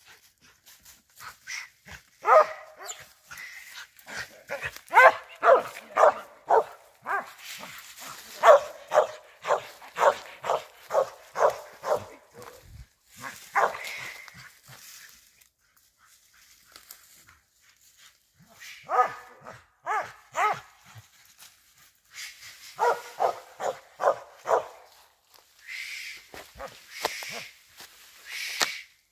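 Squirrel-hunting dog barking in runs of steady barks, about two a second, with short pauses between the runs.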